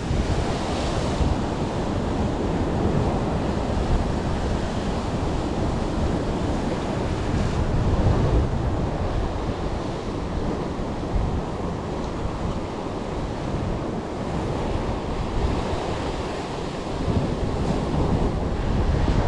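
Ocean surf surging and breaking against a rocky sea cliff, with wind buffeting the microphone. The surf swells louder about eight seconds in and again near the end.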